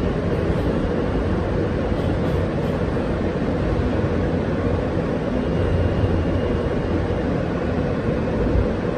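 Steady running noise of a New York City subway F train in motion, heard from inside the passenger car.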